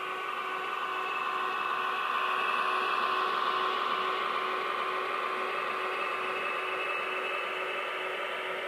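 HO scale model diesel locomotives running along the track, with a steady whir of their electric motors and gearing and the rumble of wheels on the rails. It grows a little louder about two to four seconds in as the locomotives pass close.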